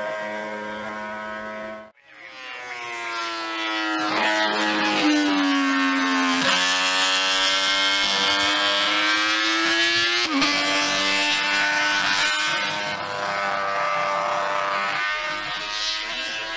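Honda RC174 six-cylinder four-stroke racing motorcycle with open megaphone exhausts, revving very high and changing up through the gears as it passes on track. The pitch climbs, then dips at each shift, about three times. It is loudest in the middle and fades toward the end. A brief cut about two seconds in breaks off an earlier engine sound.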